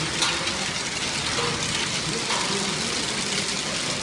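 Hailstorm: heavy rain and hail beating on clay tile roofs, a dense steady hiss with a few sharper knocks.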